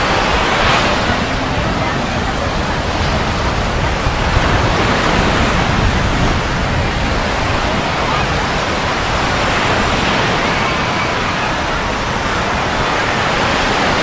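Ocean surf washing steadily onto the beach, with faint voices of people in the background.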